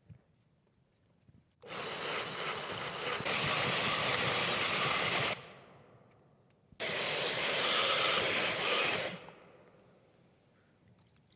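Steel knife blade being ground on a power grinder in two passes, the first about three and a half seconds long and the second about two and a half: a harsh grinding hiss with a thin high whine, starting and stopping abruptly.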